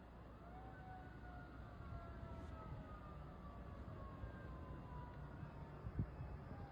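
Faint emergency-vehicle siren wailing, its pitch falling slowly, over a low rumble, with a single short thump near the end.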